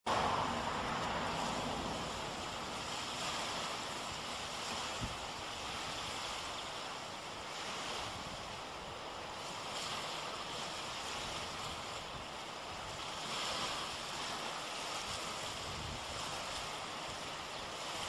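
Small waves washing onto a shell-strewn shore in slow, repeating swells, with wind noise on the microphone.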